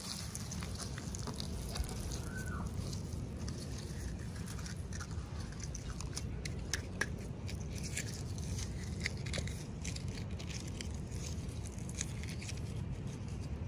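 Toy packaging being handled and opened: scattered small clicks and crinkles of plastic and paper over a steady low rumble.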